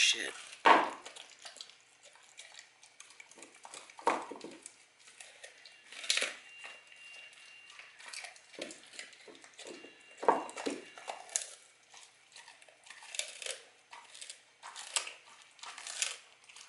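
Dog crunching frozen raw chicken on the bone, the bones snapping between its teeth: irregular sharp cracks with wet chewing in between, the loudest crack about a second in.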